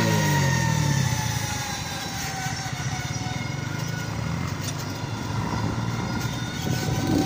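Motorcycle engine running at low revs, with the engines of the tractors following behind. A faint high whine slowly falls in pitch. The engine sound eases off about a second in and picks up again near the end.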